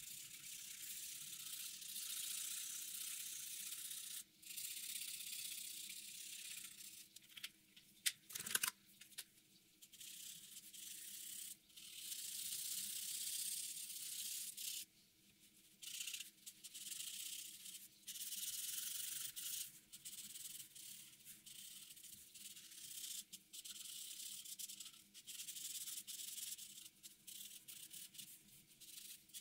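Felt-tip marker rubbing back and forth over paper, a scratchy hiss in long strokes broken by short pauses as the tip is lifted. A couple of sharp clicks come about eight seconds in.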